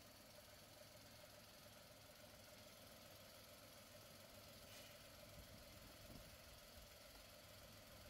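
VW Polo 9N's 1.2-litre three-cylinder petrol engine (code BBM) idling faintly and steadily. The seller calls it a very good engine.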